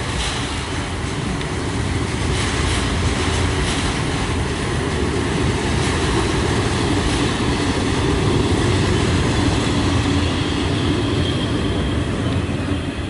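Regional electric multiple unit passing: a steady rumble of wheels on rails with a few sharp clicks, loudest midway. It fades near the end as the last coach goes by.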